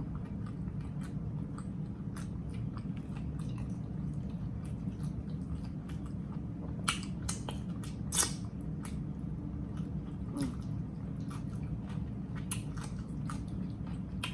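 A person chewing and biting into a chopped grinder sandwich, with many small wet, crunchy mouth clicks and two louder crunches about seven and eight seconds in. A steady low hum runs underneath.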